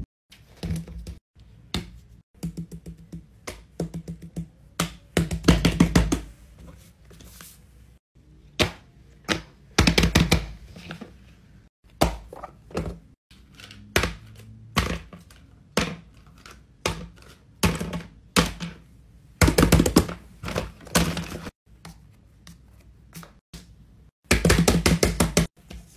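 Silicone fidget toys being handled and set down on a paper mat: irregular taps and thunks, with a few short bursts of quick clicks.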